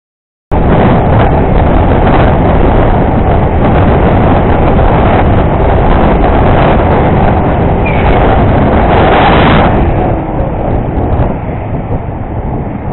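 Loud wind rush on the microphone of a camera on a moving motorcycle, mixed with riding noise from the bike and road. It starts suddenly about half a second in and eases a little after about ten seconds.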